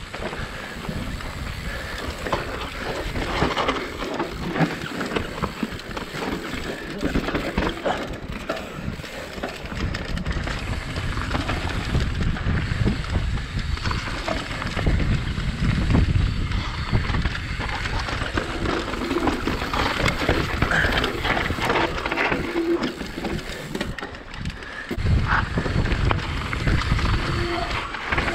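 Mountain bike riding fast down a dirt trail: knobby tyres rolling and skidding over dirt and rocks, the bike clattering over bumps, with wind buffeting the microphone.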